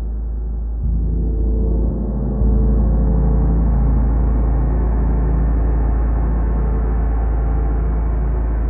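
A 40-inch Wuhan feng gong rings in a deep, sustained wash of overtones. It grows suddenly louder with fresh strokes about a second in and again about two and a half seconds in, then holds its swell.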